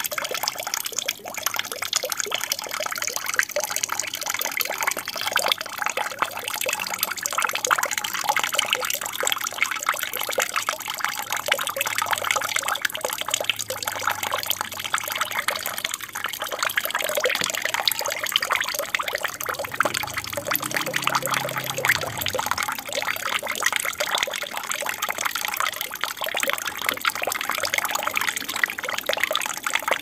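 Steady trickling and splashing of water running in a home aquarium with a waterfall feature.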